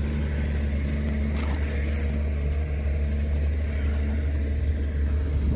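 Heavy machinery engine running steadily: a deep, even drone with a few steady low tones, cutting off abruptly at the very end.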